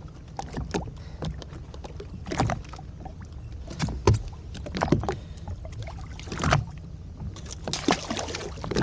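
Irregular knocks, clatter and splashes over a steady low rumble: a large lingcod being handled and netted alongside a Sea-Doo Fish Pro personal watercraft.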